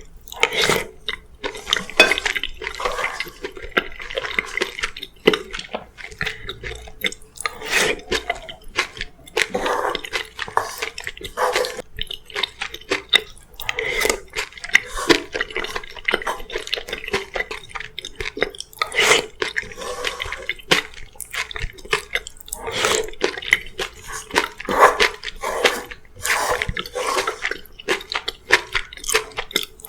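Close-miked eating: wet, juicy chewing and biting with many irregular clicks and smacks.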